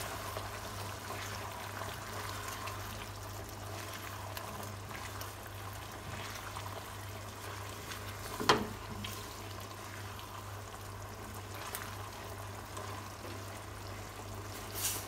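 Thick sauce simmering in a stone-coated wok as meatballs and peppers are stirred with a silicone spatula, over a steady low hum. A sharp knock of the spatula against the pan about eight and a half seconds in is the loudest sound.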